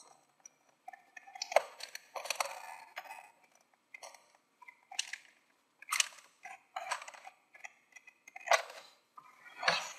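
Cardboard-and-plastic retail blister package crackling and crunching in irregular bursts as it is pried and pulled open with difficulty.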